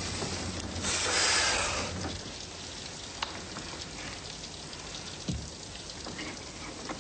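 Steady rain falling, swelling louder for about a second near the start, with a sharp click about three seconds in and a soft low thump a couple of seconds later.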